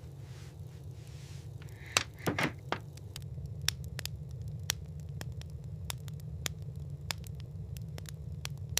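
Wood fire crackling in an iron stove: sharp pops come about three times a second over a steady low rumble. A few louder knocks and a short burst come about two seconds in.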